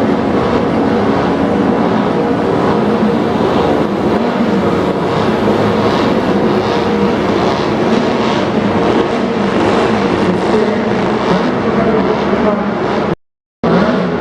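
Engines of a parade of classic racing cars and motorcycles running together at low speed, a steady mix of several engines at once. The sound cuts out completely for about half a second near the end.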